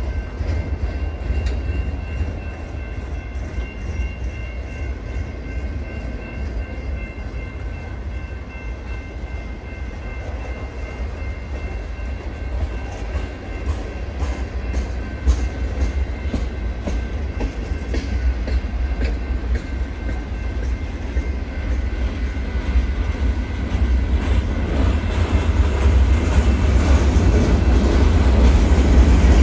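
Freight train cars rolling past: a steady low rumble of wheels on rail with clicking over the rail joints, growing louder near the end.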